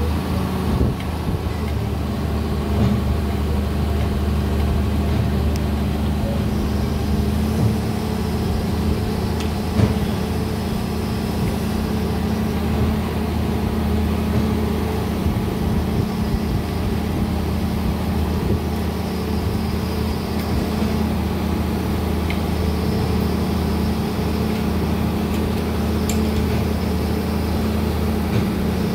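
Heavy diesel engine of a crawler crane running steadily at a constant speed, with a few scattered knocks.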